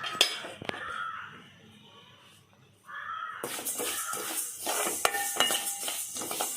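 Sesame seeds roasting in a metal pan, stirred with a spoon: a couple of clinks at first, then from about halfway a steady hiss with quick scraping and clinking of the spoon against the pan.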